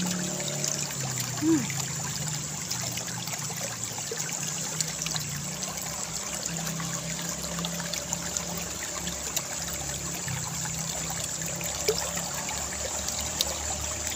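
Water flowing and trickling steadily along a small concrete-lined irrigation channel. There is a brief louder blip about a second and a half in, and a few faint clicks.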